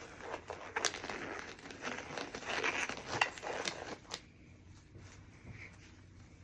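Disposable exam gloves being pulled on: crinkling and rustling with a few sharp clicks, dying away about four seconds in.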